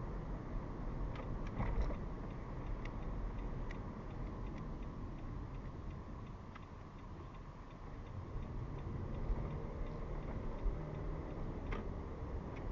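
Car cabin noise while driving: a low road-and-engine rumble with the turn-signal indicator ticking at a regular pace.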